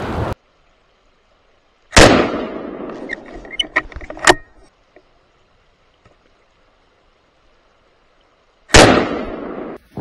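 Two rifle shots about seven seconds apart, each a sharp crack that echoes away over about a second. Between them come a few quick metallic clicks, typical of the rifle's action being worked to chamber a second round.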